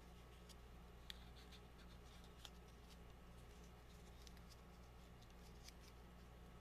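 Faint crinkling and soft ticks of a folded dollar bill being creased and handled, over a low steady hum; the whole is near silence.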